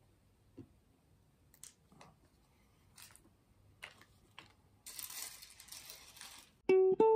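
Tiny plastic mini-building bricks giving scattered light clicks as they are handled on a plastic mat, then a rustling slide of about a second and a half as a hand spreads the pile out. Plucked-string music starts near the end.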